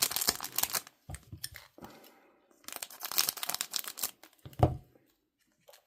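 A trading card pack's wrapper being torn open and crinkled in several rustling bursts, with a single thump near the end.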